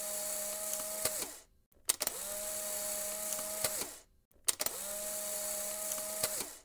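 A small electric motor whirring in three runs of about two seconds each, separated by short silences. Each run starts with a click, holds a steady hum, and stops with a click.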